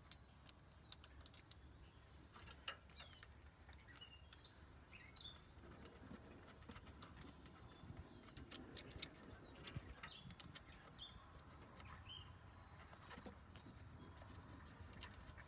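Faint bird chirps, short and scattered, over scattered light clicks and taps.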